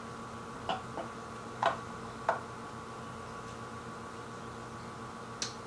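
About five light clicks and taps from hands handling fittings on the telescope's camera and focuser end, spread unevenly, with the last one near the end. A steady faint hum runs underneath.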